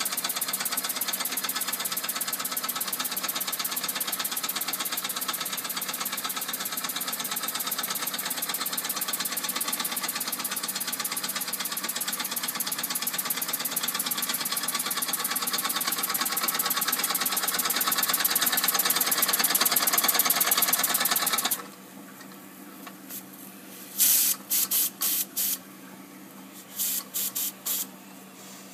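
Toy live-steam engine running fast, a rapid even chuffing with steam hiss that grows louder, then cuts off suddenly about three-quarters of the way through, followed by a few short loud bursts of hiss.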